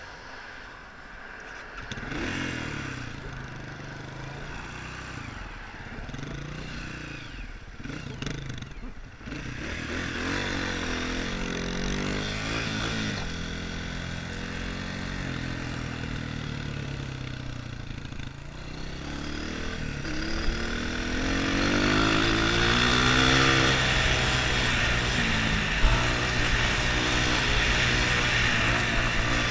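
Dirt bike engine pulling away about two seconds in, then revving up and shifting through several gears, the pitch climbing and dropping back with each shift. It grows louder later on as the bike gets up to speed.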